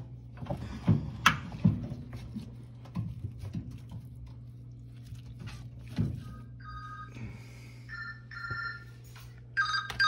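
Sharp plastic clicks and knocks from a GE washer's drain pump housing being handled. From about six and a half seconds in, a phone ringtone sounds: short electronic chimes of two notes together, repeating and loudest near the end. A steady low hum lies under it all.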